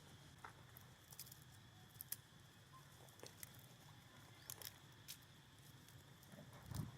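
Near silence with faint scattered clicks and a soft low thump near the end.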